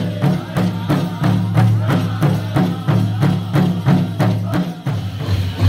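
Powwow drum group playing: a steady drumbeat of about three strokes a second under group singing, with a change in the song near the end.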